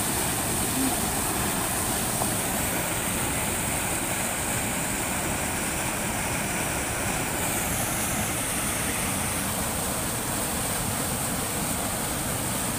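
Rushing stream water pouring through small rapids between boulders, a steady, unbroken rush of white water.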